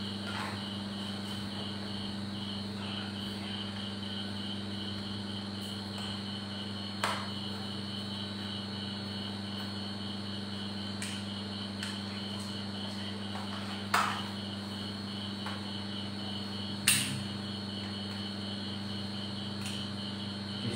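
An insect chirping steadily, about three chirps a second, over a steady low hum, with three sharp knocks spaced through the stretch.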